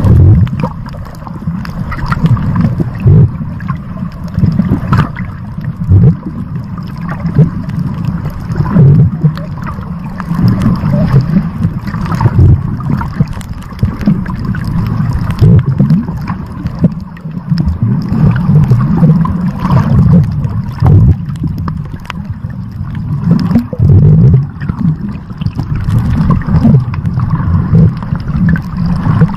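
Underwater water ambience: a loud, low rumble of moving water that swells and falls every second or two, with gurgling and scattered faint clicks.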